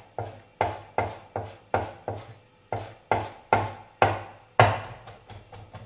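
Kitchen knife chopping fresh herbs and garlic on a wooden cutting board: regular chops about two or three a second, with a brief pause a little over two seconds in and lighter strokes near the end.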